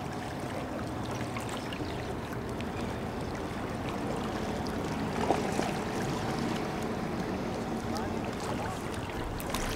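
Steady wash of water and wind noise, with a single short knock about five seconds in.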